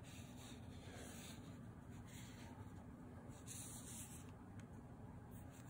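Faint rustling of cotton embroidery floss being drawn out of its skein, the thread sliding through fingers and the paper band in a few soft swishes.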